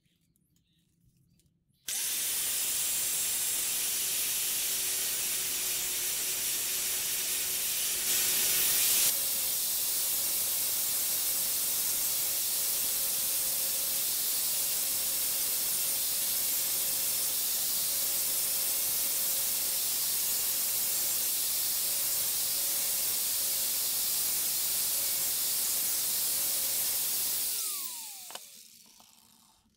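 Angle grinder with a 120-grit flap disc switched on about two seconds in and running steadily as it grinds rust off a steel chisel blade, with a brief louder patch about a third of the way through. Near the end it is switched off and winds down with a falling whine.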